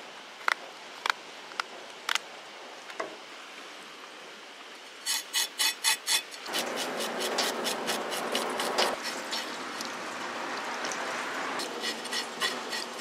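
Fish being prepared on a wooden cutting board: sharp knocks about every half second at first, then a quick run of scraping strokes. After that comes a steady rush of running tap water, and knocks again near the end.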